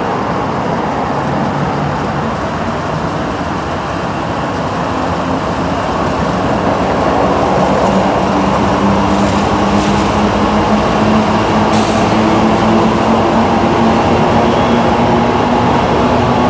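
Union Pacific freight train's diesel locomotives moving slowly past, the engines droning steadily and growing louder about halfway through as they come alongside. The freight cars behind them then start rolling by.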